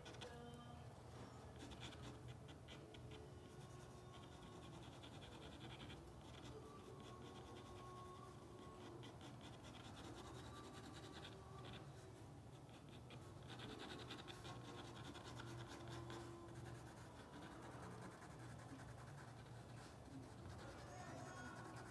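Faint scratching of an ink pen on paper in quick, repeated hatching strokes as dark areas of a drawing are filled in, over a low steady hum.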